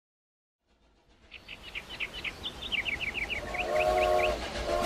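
Silence, then outdoor ambience fades in with a bird singing a quick run of chirps. Near the end a steam locomotive's whistle starts to sound over a growing low rumble.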